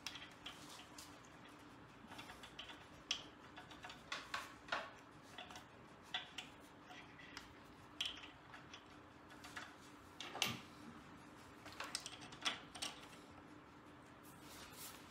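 Scattered faint clicks and clinks of small metal engine parts being handled, as the oil pump of a Kohler Magnum 18 is put together, over a steady low hum.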